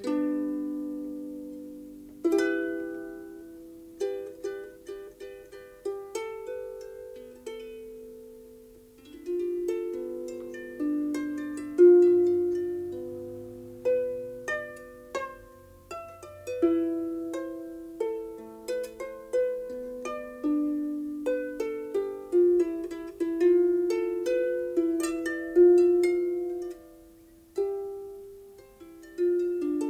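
Solo harp music: a slow melody of plucked notes, each ringing and dying away, opening on a chord.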